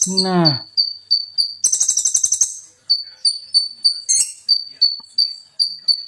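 A small caged songbird singing a steady run of short, sharp, high notes, a few each second. About two seconds in, and again briefly near four seconds, the notes break into a dense, rapid, buzzy trill.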